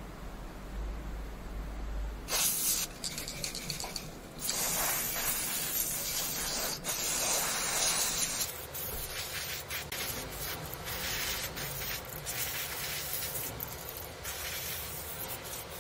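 Aerosol spray can hissing through a straw nozzle, spraying cleaner onto a CPU to wash off excess thermal paste. It starts about two seconds in, with the longest burst lasting about four seconds, then shorter, fainter bursts.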